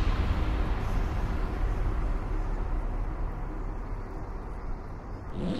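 A steady low rumbling noise that slowly fades, followed near the end by a short rising whoosh.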